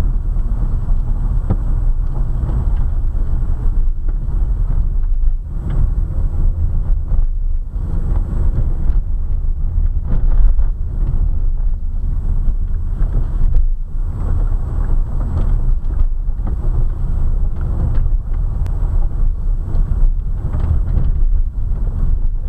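Car rolling down a gravel road, heard from inside the cabin: a steady low rumble of tyres on loose gravel and the engine, with a few light ticks scattered through.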